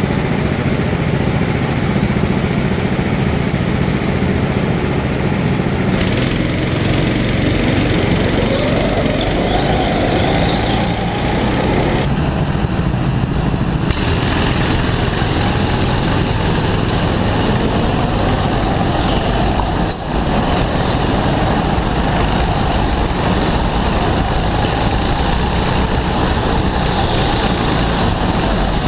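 Go-kart engine heard from an onboard camera at racing speed, its note rising as the kart accelerates and falling again into corners. The sound changes abruptly a few times where clips are joined.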